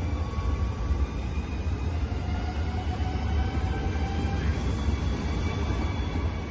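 NS ICNG electric intercity train (Alstom Coradia Stream) passing: a steady low rumble of the running train with a high-pitched whine of several thin tones that drift slowly in pitch.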